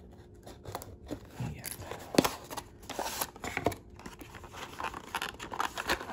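A cardboard Hot Wheels ID box being slit open with a small knife and unpacked, a run of short scrapes, clicks and plastic crinkles as the box is pulled open and the clear blister tray slides out. The sharpest snap comes about two seconds in.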